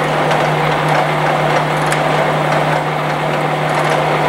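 Blanchard Model 11 rotary surface grinder running under power: a steady electric-motor hum over an even whir of its gear drive.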